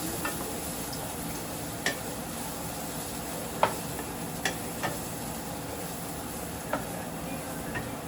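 Oil frying in a pan with a steady sizzle, while a utensil stirs and clicks against the pan several times.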